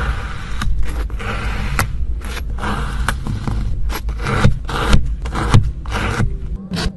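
Kinetic sand being cut and poked with a metal blade and rod: a run of short, crunchy scraping strokes with brief gaps between them, over a steady low hum that stops near the end.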